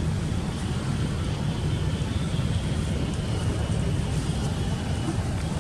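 Wind buffeting the microphone: a steady low rumble. A faint thin high tone fades out about three seconds in.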